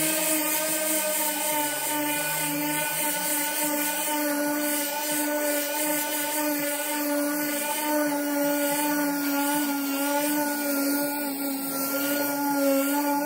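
Random orbital sander with a dust-extraction hose running with a steady whine as it sands down dried body filler on a car panel.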